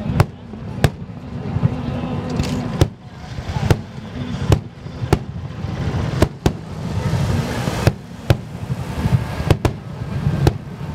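Fireworks firing in quick succession: sharp, irregular bangs and cracks, more than one a second, over a continuous low rumble.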